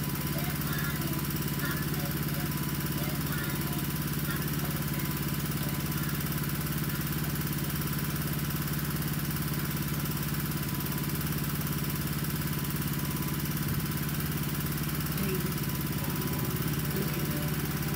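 Steady drone of a small engine running at a constant speed, with a faint high hiss over it.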